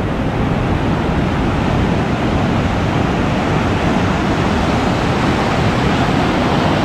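Ocean surf breaking and washing through the shallows, a steady rushing noise.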